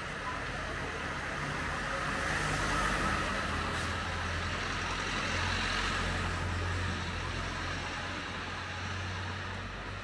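A car driving slowly past close by on a narrow town street. Its low engine hum and tyre noise build over the first few seconds, hold, and then fade near the end.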